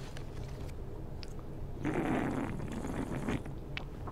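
Loud, wet slurping and smacking mouth noises of someone eating a snack on purpose, lasting about a second and a half from about two seconds in, over a steady low ventilation hum.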